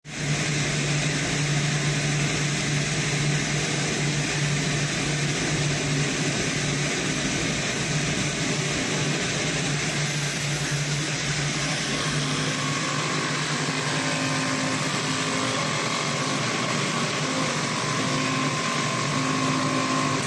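Automatic multi-ply CNC fabric-cutting machine running: a steady mechanical hum and hiss, in keeping with its vacuum hold-down bed. About halfway through the low hum changes and higher tones start coming and going in short stretches.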